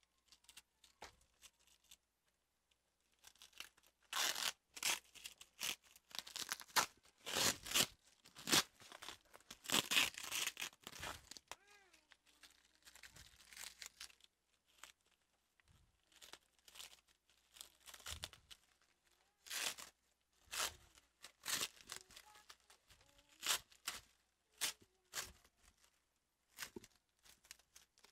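Plastic packaging wrap being torn and pulled open by hand, in irregular bursts of tearing and crinkling.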